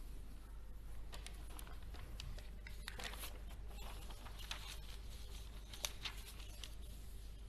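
Faint scratching and light taps of writing by hand, busiest in the middle, over a steady low hum.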